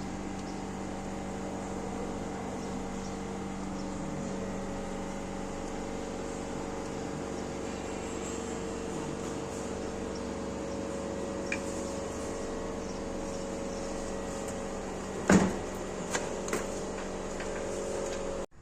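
A cooling unit running with a steady, even hum. About fifteen seconds in there is one loud knock, followed by a few lighter clicks.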